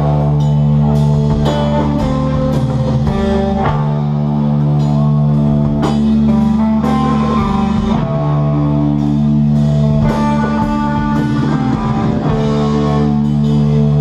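A rock band playing live: electric guitar and bass guitar held over a drum kit, loud and steady.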